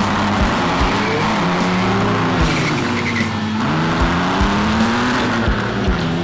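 Background music with a steady thumping beat, mixed with demolition-car engines revving up and down.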